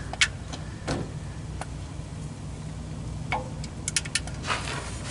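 Ratchet of a long torque wrench clicking as the handle is swung back between short quarter-turn tightening strokes on an oil drain plug: single clicks spaced well apart, then a quick run of clicks about four seconds in.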